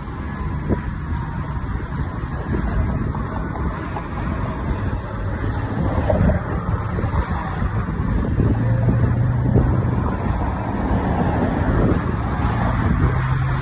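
Ford Explorer fire department SUV's engine running at low speed as it reverses slowly, with a steady low hum that swells twice, about eight seconds in and near the end. Wind on the microphone and street traffic run underneath.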